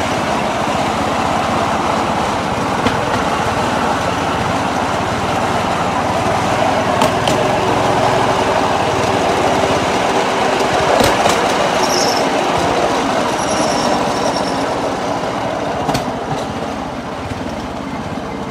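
Motorized rail skate, a small engine-driven rail trolley, running along a railroad track: steady engine and wheel-on-rail noise, with a few sharp clicks along the way.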